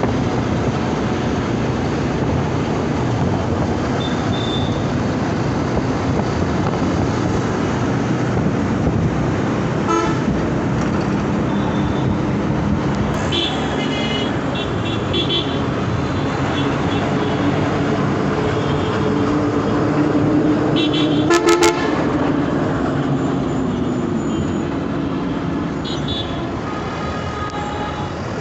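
Heavy city road traffic heard from a bike riding through it: a steady run of engine and road noise with car and vehicle horns honking again and again, a cluster of toots near the middle and a sharp, loud horn blast about three-quarters of the way through.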